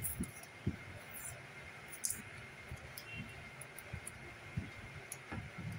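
Faint scattered clicks, light taps and a few brief scrapes of hands working at the edge of a laptop LED display panel, prying its outer casing open.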